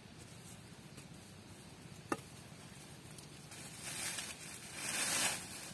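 A small hand hoe digging in forest soil among dry leaf litter: quiet scraping with one sharp click about two seconds in, then louder bursts of rustling and scraping in the last two seconds.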